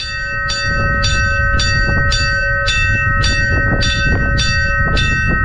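A ship's bell on the foremast, rung by pulling its clapper lanyard: about two strikes a second, each ringing on into the next. This rapid ringing is the bell's sound signal for a vessel at anchor or aground in restricted visibility.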